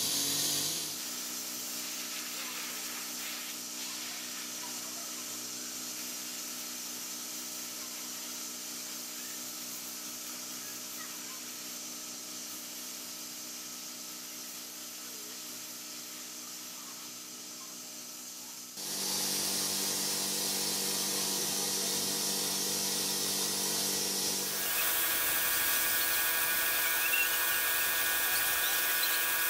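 Air spray gun hissing steadily as paint is sprayed, over a steady machine hum. The sound gets louder and changes abruptly about two-thirds of the way in, and again near the end, where a higher whine is added.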